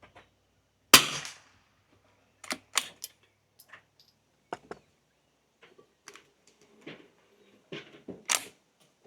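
A single .22LR rifle shot from a Sako P94S, a sharp crack with a short decaying tail, about a second in. It is followed over the next several seconds by a string of lighter sharp clicks and clacks.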